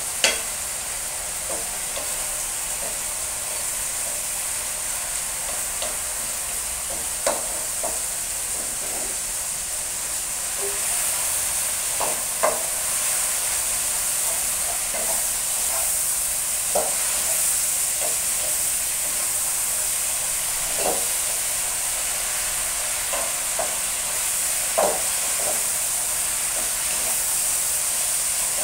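Yardlong beans, fried sardines and sweet potato tops sizzling in hot oil in a wok, stir-fried with a spatula that scrapes and clacks against the pan now and then. The sizzle is steady and grows a little louder about a third of the way in.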